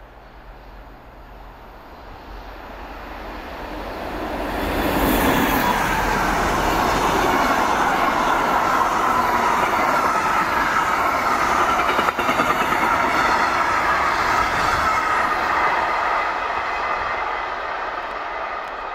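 Bombardier Traxx electric locomotive hauling a container freight train, approaching and passing at speed. The noise builds quickly about four to five seconds in, then holds as a long steady rumble of wagon wheels rolling on the rails, and eases off near the end.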